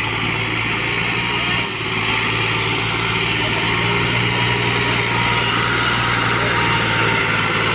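Diesel farm tractor engine running steadily under load while pulling a heavily loaded trailer. There is a brief dip in level a little under two seconds in.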